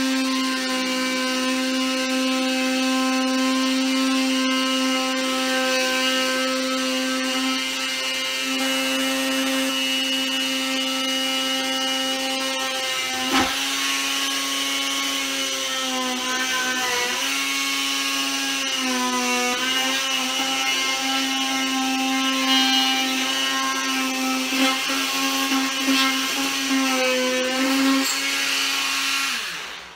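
Corded handheld power tool cutting into a vinyl plank, a steady high whine whose pitch sags briefly a few times as the tool bites, then shuts off just before the end.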